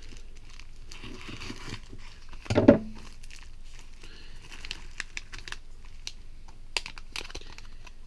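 Plastic mailer package being cut open with a knife and handled, crinkling and tearing, with a brief louder sound about two and a half seconds in. Near the end, the anti-static bag inside crinkles as it is pulled out.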